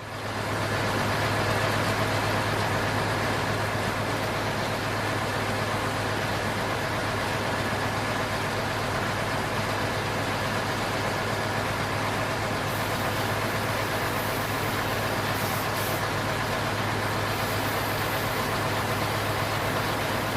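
A steady engine-like drone with a constant low hum that fades in at the start and then runs on unchanged.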